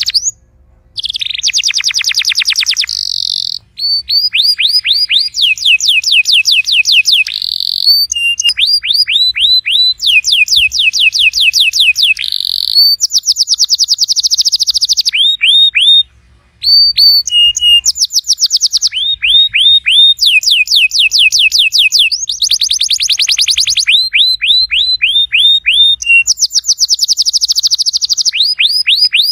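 Domestic canary singing a long song of rapid trills, each a fast run of repeated down-sweeping notes. The bird switches to a new trill every second or so, with brief breaks near the start and about halfway.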